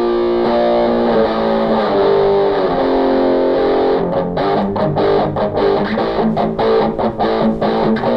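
Playback of a freshly recorded electric guitar part, played through a multi-effects unit. Held chords ring for the first few seconds, then short, choppy notes start about four seconds in.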